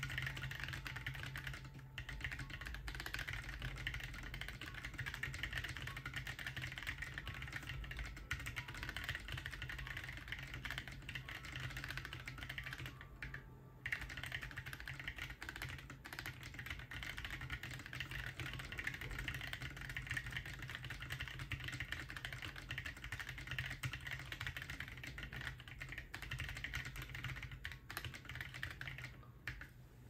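Steady fast typing on a Corne split keyboard with Boba U4T tactile switches lubed with Tribosys 3203, blank SA keycaps, a PETG plate and an acrylic gasket case: a dense run of key clacks with a brief pause about halfway through.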